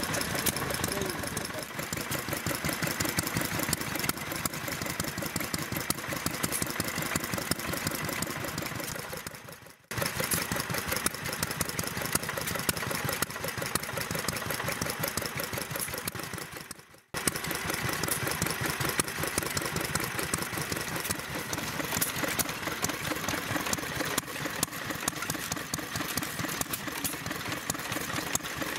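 Vintage stationary engines running steadily, one after another, each a rapid even beat of firing strokes. There are sharp breaks between them, about ten and seventeen seconds in.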